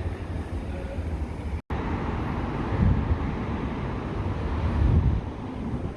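Wind buffeting the microphone over the steady noise of city street traffic, swelling in stronger gusts about three and five seconds in. The sound cuts out for an instant just before two seconds in.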